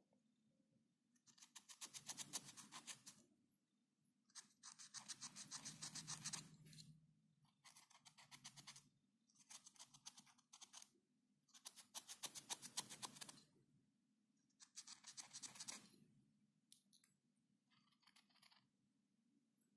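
Rapid back-and-forth scratching strokes in about seven short bursts of a second or two each, with pauses between them.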